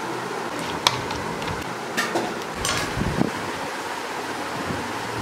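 A few sharp clinks of a serving spoon and steel plates over a steady background hiss, with low thumps about three seconds in.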